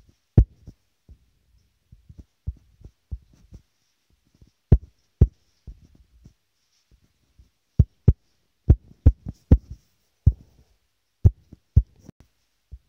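Irregular short dull thumps of a fingertip tapping and stroking a phone's touchscreen, heard through the phone's own microphone, sometimes coming several a second.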